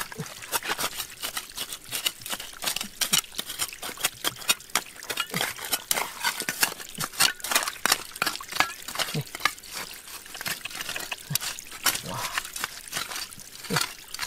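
Water splashing and trickling, with a dense run of small clicks and knocks.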